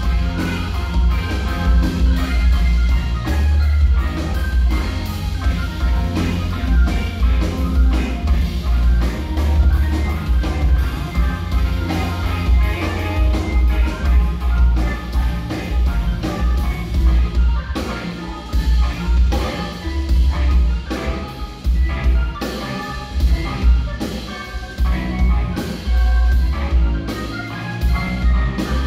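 Live organ trio playing: a Hammond B-3 organ, an electric guitar and a drum kit. The bass is strong and low, and the drum hits are steady throughout.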